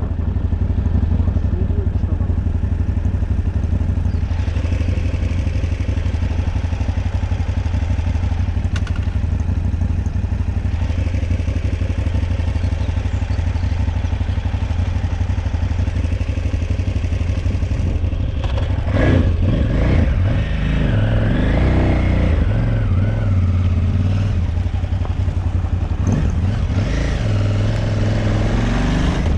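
Motorcycle engine running steadily while riding, heard from on the bike. The note turns uneven about two-thirds of the way through.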